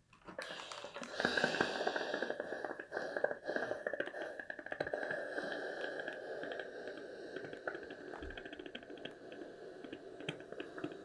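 Steam iron pressing a folded fabric hem. The iron hisses steam, beginning suddenly about half a second in, then goes on with a steady hiss while small clicks and fabric rustles come from the iron and hands working the fold.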